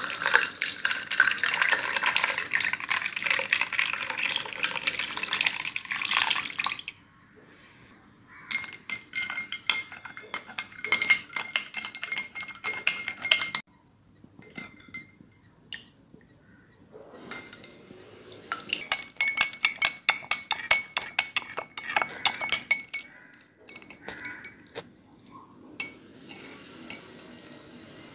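Milk pouring into a glass over ice for about seven seconds, then a spoon stirring in the glass, clinking rapidly against it with a ringing tone in two spells, with fainter clinks near the end.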